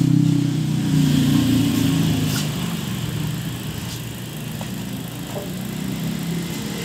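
Rear wheel of a road bike spinning freely on a newly fitted Speed hub and freehub: a steady mechanical buzz from the coasting freehub that grows quieter as the wheel slows.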